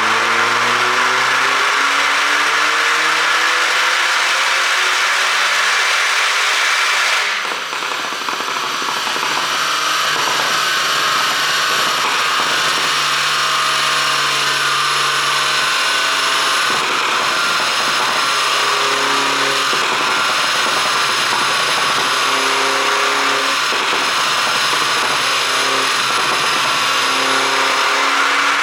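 2009 Mini Cooper S's turbocharged four-cylinder engine running under load, its pitch climbing steadily for about seven seconds. It then changes abruptly to a steady, loud whine with a low hum that steps up and down in pitch.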